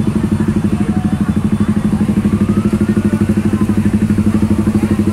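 Motorcycle engines idling in stalled traffic, one close by giving a steady, even low putter of about ten beats a second, with faint voices of the crowd behind.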